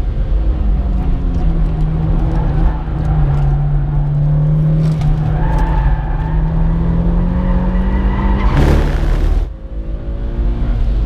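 Mitsubishi Lancer Evolution IX's turbocharged four-cylinder engine heard from inside the cabin at speed on a race track. The engine holds a steady note, with a thin tyre squeal through the corner, then rises in pitch. Near the end comes a brief loud rushing noise, a short drop in level, and the engine picking up revs again.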